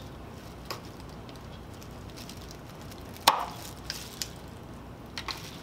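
A knife blade cutting the tips off the plastic tubes of a two-part 5-minute epoxy syringe. There is one sharp snap about three seconds in and a lighter click before it, followed by a few small clicks of plastic being handled.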